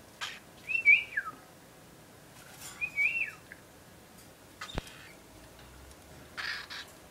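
Cockatiel giving two whistled calls about two seconds apart, each held briefly and then sliding down in pitch. Short scratchy noises come around them and again near the end, with a single sharp click near the middle.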